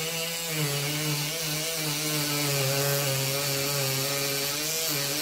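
Ryobi 4V USB Lithium power carver running steadily as its gouge bit cuts along a piece of wood at a constant depth. Its hum wavers slightly in pitch, with a hiss of cutting over it.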